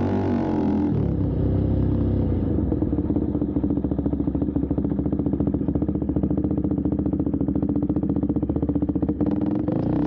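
Husqvarna Svartpilen 401's single-cylinder engine through a loud custom muffler with the catalytic converter removed. About a second in the revs drop to an idle with a fast, even beat of exhaust pulses, and they pick up again just before the end.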